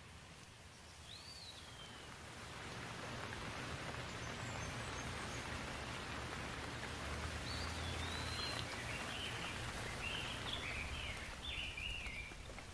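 Steady rain falling, swelling louder about two seconds in. A bird chirps once at about a second in, and a run of short chirps comes in the second half.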